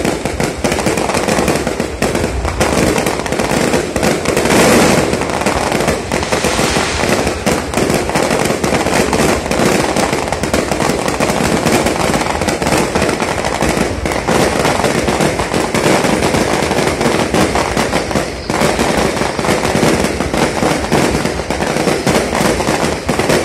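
Fireworks display: aerial shells bursting overhead in a dense, unbroken run of bangs and crackling, with the loudest stretch about four to five seconds in.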